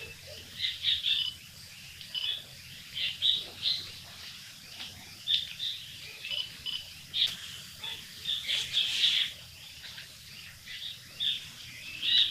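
Chestnut-bellied nuthatch calling: short, high notes repeated in irregular clusters of two to four, with brief pauses between them.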